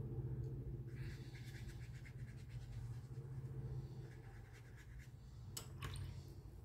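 Paintbrush working watercolour paint, faint scratchy strokes over a steady low hum, with a few sharp clicks near the end.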